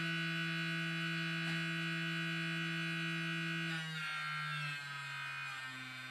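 Small brushed vibration motor from a vibrating toothbrush buzzing steadily as it shakes a foam boat hull, its pitch stepping down twice, about four seconds in and again about five seconds in, as the motor is slowed.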